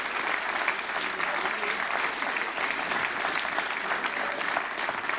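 Audience applauding steadily, with laughter.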